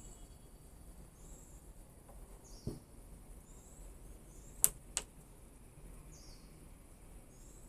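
Two sharp plastic clicks about a third of a second apart near the middle, as the baby scale's tare button is pressed and the reading zeroes. A dull knock comes a couple of seconds earlier, and faint bird chirps sound throughout.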